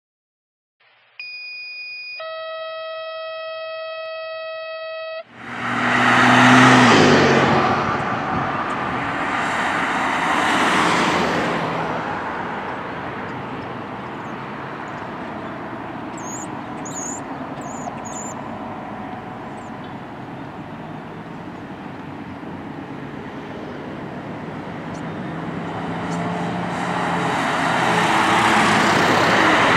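A short electronic intro tone of held notes, then steady road traffic on a multi-lane road. A loud vehicle passes about six seconds in, and the traffic swells again near the end as cars go by close.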